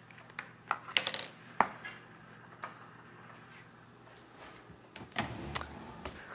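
A few sharp clicks and light knocks of small household objects being handled and set down, the loudest about one and one and a half seconds in, then a brief rustle of handling around five seconds in.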